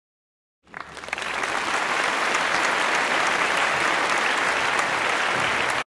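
Applause, a crowd clapping, fading in about half a second in, holding steady, then cutting off abruptly near the end.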